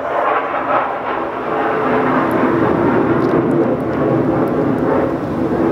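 Airplane passing, a loud steady drone.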